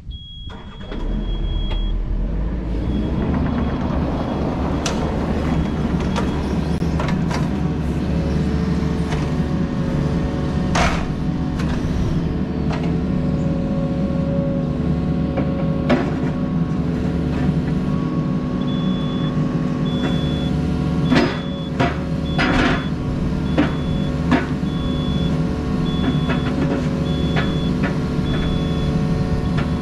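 Yanmar mini excavator's diesel engine starts about a second in and runs steadily while the hydraulic arm is worked. Several sharp metallic clunks come from the arm and thumb linkage as the bucket is hooked up. A faint high beep repeats throughout, most often in the second half.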